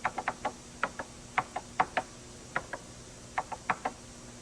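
Keys being typed on a Radio Shack TRS-80 computer keyboard: about eighteen short, sharp keystroke clicks in irregular clusters, as the date is entered.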